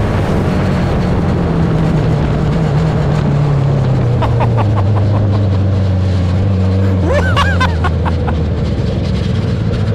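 Buggy's Suzuki Hayabusa motorcycle engine heard from on board while driving, with steady wind and tyre noise. Its note falls over a few seconds as the revs drop, then holds steady.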